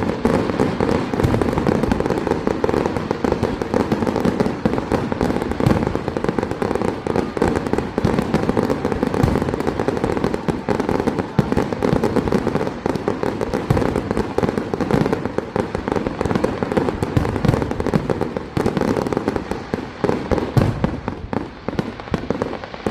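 Large fireworks display: a dense, continuous barrage of loud bangs and crackling with no pause.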